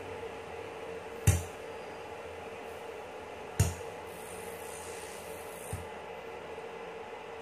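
Two sharp clicks about two seconds apart, then a fainter tap, over a faint steady hum.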